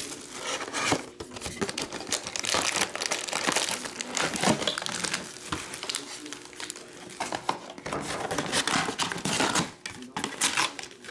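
Plastic crinkling and rustling: a trading-card hobby box's torn-off shrink wrap being crumpled, and its foil-wrapped card packs handled and stacked, in an irregular run of crackles.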